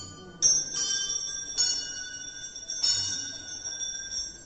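Temple bell struck about four times, each stroke left to ring on with a bright metallic tone.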